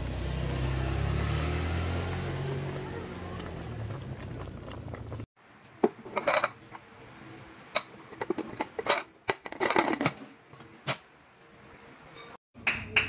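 A low steady rumble with a hum. After a cut about five seconds in, it gives way to irregular clinks and knocks as raw beef marrow bones and meat are handled in a steel pot.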